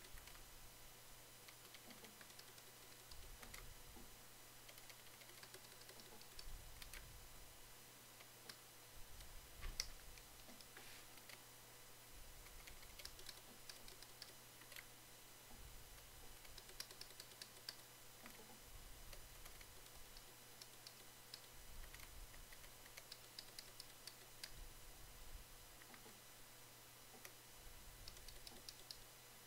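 Faint computer keyboard typing: short runs of keystrokes with pauses between them, as code is re-indented line by line.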